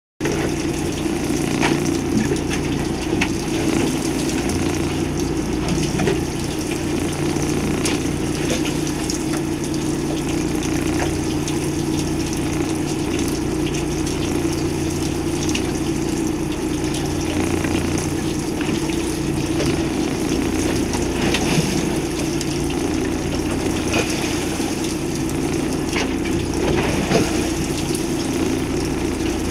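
Steady hum of the fishing boat's engine mixed with water rushing along the hull, picked up by a camera's built-in microphone that records much noise, with a few scattered clicks.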